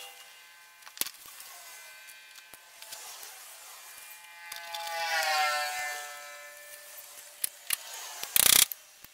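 Screwdriver and hands working at a metal electrical junction box: scattered sharp clicks and knocks, with a drawn-out squeal that bends down in pitch through the middle. A short, loud scrape comes near the end.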